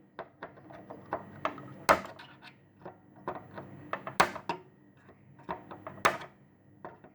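Side cutters snipping through the pins of a chip on a circuit board: a string of sharp clicks, with three louder snaps at about two, four and six seconds in and fainter ticks between.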